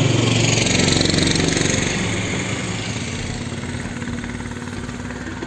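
A small engine running steadily, loudest in the first couple of seconds and then fading somewhat.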